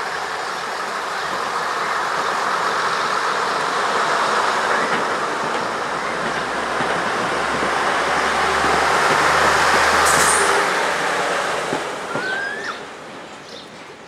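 A passenger train rolling past on the rails, with a steady rumble and clatter of wheels and carriages. It builds to its loudest as the coaches go by, then fades away near the end as the last vehicle clears.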